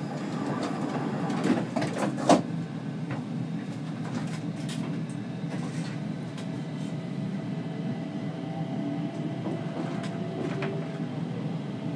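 Steady low rumble of a Stockholm C20 metro train, with two sharp clacks about one and a half and two and a half seconds in, the second the loudest.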